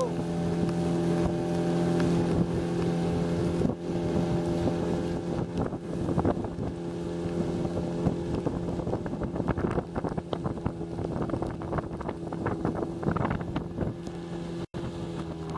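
Outboard motor driving a canoe at speed, running at a steady pitch, with water rushing and splashing along the hull and wind buffeting the microphone.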